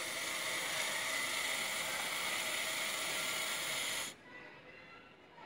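Aerosol chain spray hissing steadily onto a motorcycle drive chain, cutting off suddenly about four seconds in.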